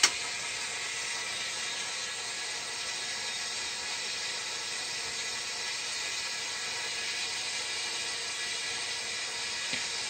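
Steady hiss of water running through a Hydrolevel VXT automatic water feeder into a steam boiler, refilling it after the low water cutoff has tripped. A brief click at the very start.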